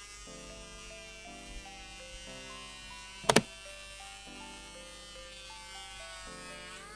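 Electric hand planer motor running with a steady high whine under background music of short stepped melody notes. A sharp double click sounds about three seconds in.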